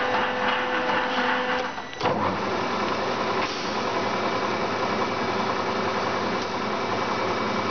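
LeBlond Makino lathe headstock running under power, a steady gear whine with a three-jaw chuck turning. About two seconds in the running sound dips briefly, then carries on with a different pitch, as the spindle speed is changed on the Servo Shift gearbox.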